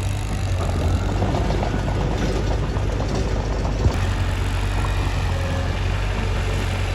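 Mitsubishi bulldozer's diesel engine running steadily with a low drone, with one sharp knock a little past the middle.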